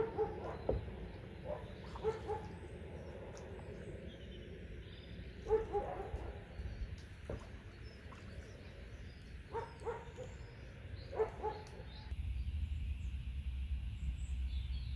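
Short animal calls in ones and pairs every few seconds, over faint high bird chirps. About three seconds before the end the sound changes to a steady low rumble.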